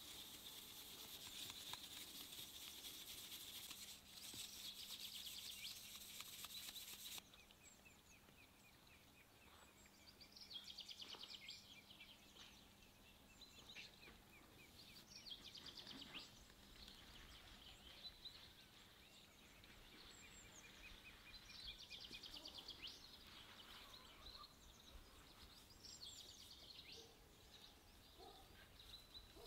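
Quiet, fine hissing rustle of flour being shaken through a wooden sieve into a plastic bowl, stopping abruptly about seven seconds in. After that, faint birds chirping.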